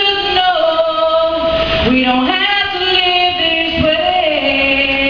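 A woman singing unaccompanied into a microphone, with long held notes and slides between pitches.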